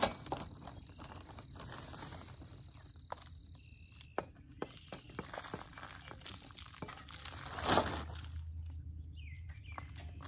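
Hands working potting mix: rustling in a plastic potting-mix bag and soil being pressed into a pot, with scattered soft taps and crinkles and one louder rustle about eight seconds in.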